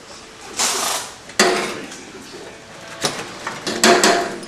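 Metal exhaust pipes clanking and scraping as the diverter section is pushed up and fitted onto the exhaust. There is a sharp ringing knock about a second and a half in, and several more clanks near the end.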